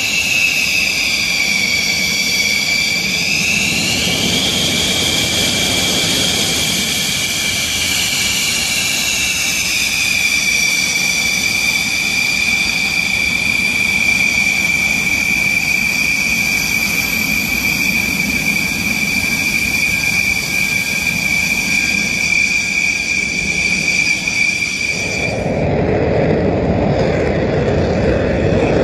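Dassault Rafale fighter's twin Snecma M88 turbofans running on the ground: a loud high-pitched jet whine that rises in pitch about three seconds in and settles lower around ten seconds. About twenty-five seconds in the whine stops suddenly and a deeper rushing jet roar takes over.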